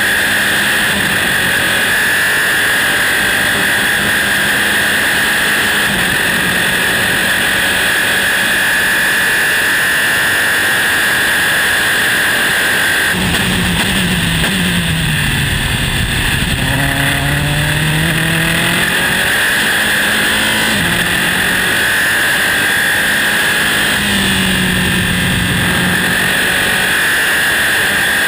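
Onboard sound of a Dallara-Volkswagen Formula 3 car's four-cylinder engine running flat out at a steady high pitch. About halfway through the pitch drops in several steps as it downshifts under braking, then climbs back up through the gears, with another brief dip and climb near the end.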